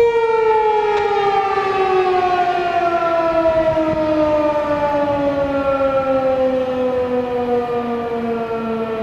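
American Signal T-128 rotating outdoor warning siren winding down at the end of its test. Its steady tone cuts off at the start and slides smoothly and steadily downward in pitch as the rotor spins down, growing gradually quieter.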